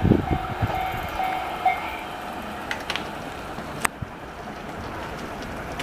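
A train passing a level crossing: the last wheels clack over the rail joints in the first second, then the running noise fades as it draws away, with a few sharp clicks from the track near the middle. A steady crossing warning tone sounds through the first couple of seconds.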